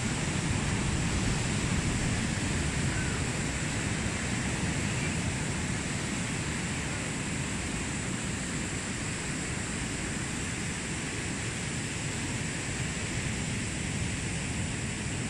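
Steady wash of ocean surf on a beach, mixed with wind, holding even throughout.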